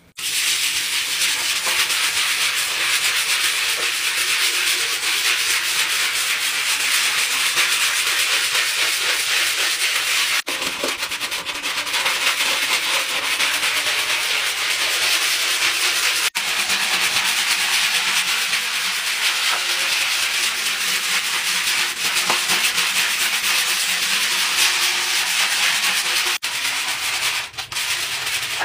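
Stiff-bristled scrub brush scrubbing a wet, soapy tiled floor: a steady scratchy rasp of bristles over the gritty surface, breaking off for an instant a few times.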